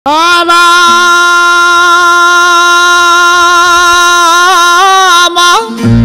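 Folk music: a singer holds one long note, bending it slightly near the end, as the opening of a folk song. Low steady instrumental accompaniment comes in just before the end.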